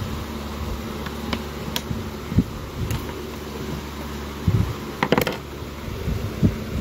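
Electric fan running with a steady hum, with soft knocks and a few sharper clicks, the loudest about five seconds in, as syrup-soaked bread slices are laid in a ceramic bowl.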